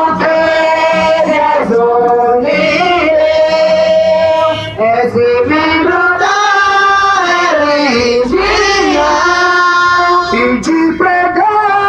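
Men and women singing a slow devotional hymn together into handheld microphones, holding long drawn-out notes that glide between pitches.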